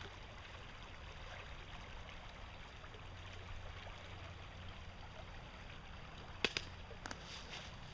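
Shallow creek water flowing over a pebbly bed, a steady low rush. Two short sharp clicks come near the end.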